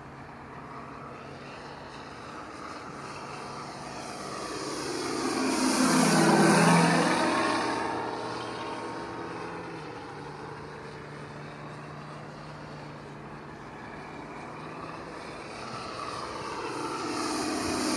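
A radio-controlled scale Stinson Reliant SR-9 model flies past, its Benedini onboard sound module playing a simulated radial-engine sound over the electric motor and propeller. The sound swells to its loudest about six seconds in, drops in pitch as the plane passes, fades, and then grows louder again near the end as it comes back.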